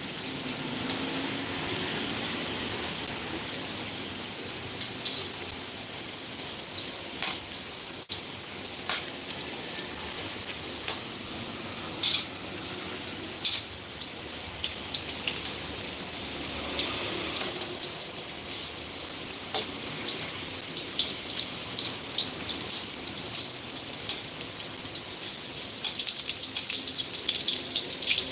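Hot oil sizzling steadily with frequent sharp crackles and pops, as food deep-fries.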